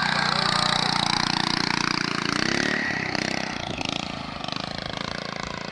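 Honda GX340 11 hp single-cylinder engine of a homemade go-kart running steadily, its sound dropping off somewhat about three and a half seconds in.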